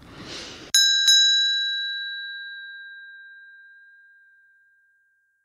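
A bright bell-like ding, struck twice in quick succession about three-quarters of a second in, its clear tone ringing on and fading away slowly over several seconds.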